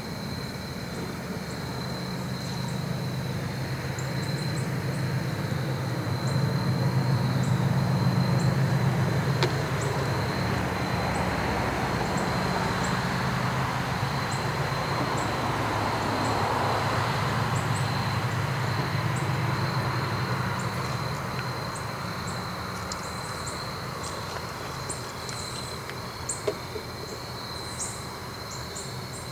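A diesel freight train passes. The locomotive's engine builds to its loudest about eight seconds in, then the rolling of the cars goes on and fades away in the last third. A steady insect buzz runs underneath, and birds chirp near the end.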